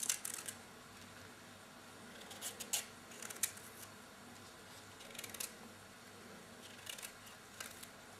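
Small kitchen knife paring the tough fibrous skin off a raw artichoke stem: short scraping cuts that come in small clusters every second or two.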